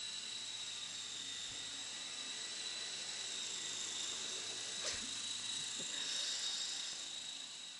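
Walkera Dragonfly 5#10 electric RC helicopter flying, its motor and rotors giving a steady high whine. There is a brief click about five seconds in.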